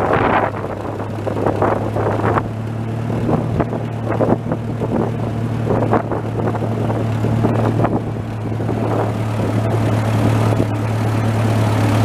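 Massey Ferguson tractor engine running at a steady pitch as the tractor is driven, with irregular knocks and rattles over it in the first several seconds.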